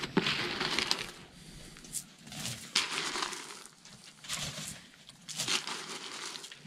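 Footsteps crunching in snow: a few slow, uneven steps.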